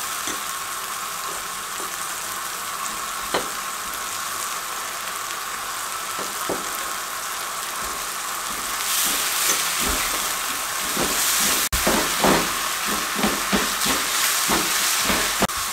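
Rice-flour and spiced-water mixture sizzling in a frying pan over a gas flame as a spatula stirs it: a steady hiss with scattered scrapes and taps of the spatula on the pan. The sizzle grows louder about nine seconds in, as another spoonful of flour goes in and is stirred through.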